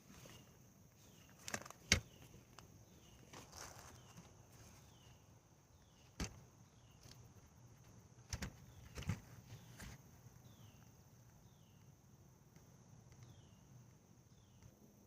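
Scattered soft knocks and scrapes of soil and tubers being dug and handled by hand, about six in all, clustered near two seconds in, around six seconds, and between eight and ten seconds. A steady insect drone and faint repeated chirps run underneath.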